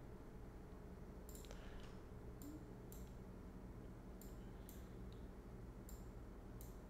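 Faint computer mouse clicks, about half a dozen, some in quick pairs, over a low steady hum.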